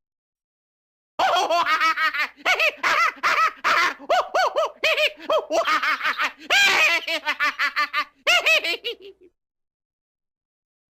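A man's crazy laugh sound effect: a long run of rapid, high-pitched 'ha-ha' bursts that starts about a second in and stops about nine seconds in.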